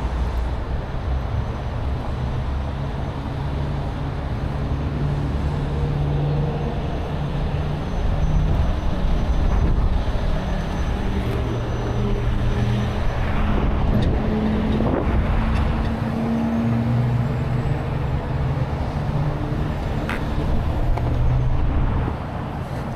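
Freeway traffic going past steadily, with a heavy truck's engine running close by, its low hum rising and falling a little.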